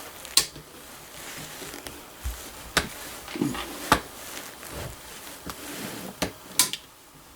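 Scattered sharp clicks and knocks, about six spread over several seconds, from handling a flintlock rifle and its loading gear while a 70-grain powder charge is loaded.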